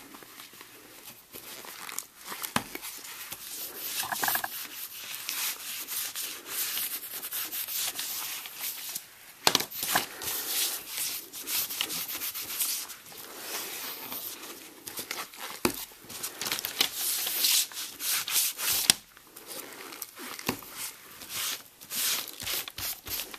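Wool pad wiping leather dye onto a leather strap: repeated scratchy rubbing strokes, with a few sharp knocks in between.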